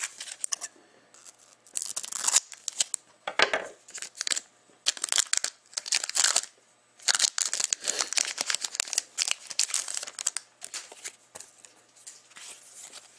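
Foil wrapper of a Panini hockey card pack being torn open and crinkled by hand, in irregular bursts of crackling and rustling with short pauses between.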